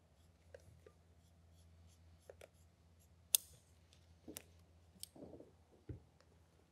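Faint snips, scrapes and clicks of scissors cutting the EPDM rubber membrane out of a roof drain opening, with one sharp click a little over three seconds in, over a low steady hum.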